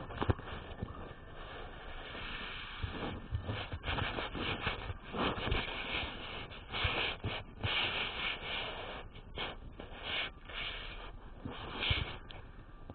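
Homemade slime being kneaded and squeezed by hand, making irregular short wet rubbing noises.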